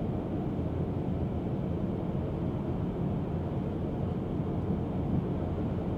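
Steady low road and tyre noise inside the cabin of a 2024 Tesla Model 3 Performance, an electric car, cruising at about 50 mph.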